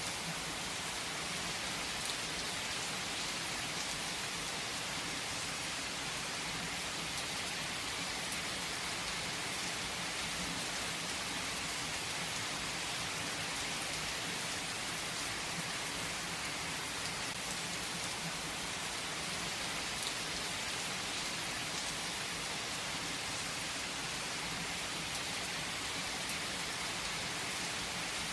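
Heavy rain falling steadily on a tree's leaves, a dense even hiss with scattered individual drops.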